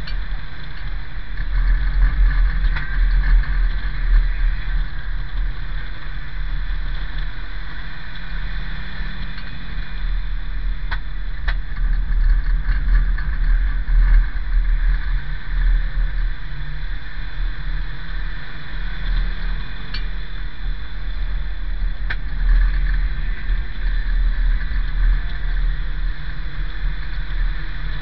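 In-cabin sound of a banger racing car being driven hard. A heavy low engine-and-road rumble surges with the revs, with a few sharp knocks through the bodyshell.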